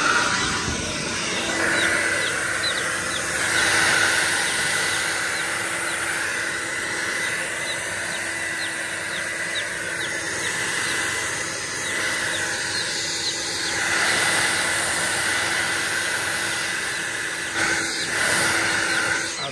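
Handheld hair dryer running steadily, a rush of blown air with a steady motor whine, cutting off at the very end. Chicks peep faintly over it.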